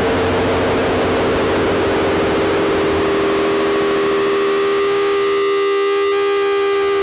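Drone synthesizer run through effects pedals: a dense wash of noise over steady held tones. In the last couple of seconds the noise thins, leaving the sustained tones ringing on their own.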